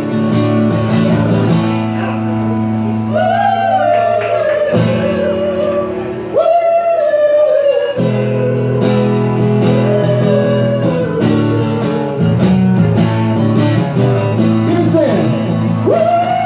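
A man singing live while strumming an acoustic guitar, with long held notes in the voice over steady chords. About six seconds in the guitar drops out briefly while he holds a note alone.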